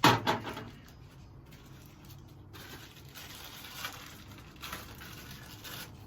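Small black pipe fittings and their plastic bags being handled: a couple of sharp knocks right at the start, then faint rustling and small clicks.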